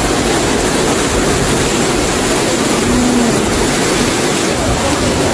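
Loud, steady rushing roar of a heavy rainstorm.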